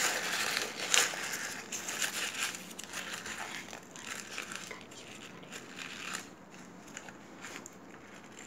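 A sheet of A4 paper crumpled and squeezed by hand, crinkling and crackling. The paper is already softened by repeated crumpling. It is loudest over the first few seconds, with a sharp crackle about a second in, then softer scattered crackles.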